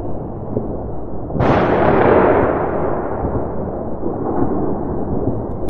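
Large fireworks bursting in the distance: a sudden boom about a second and a half in that rolls and fades over two to three seconds, over a steady low rumble.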